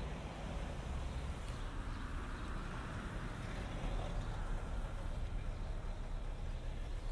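Road traffic on a city street: a steady noise of passing vehicles.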